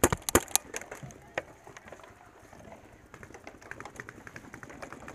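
Paintball fire: a quick run of four sharp, loud cracks right at the start, one more about a second and a half in, then a patter of fainter cracks and ticks.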